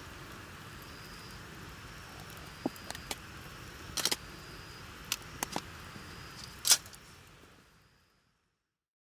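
Wood campfire crackling over a steady low hiss, with a scattering of sharp pops, the loudest near the end. The sound then fades out to silence.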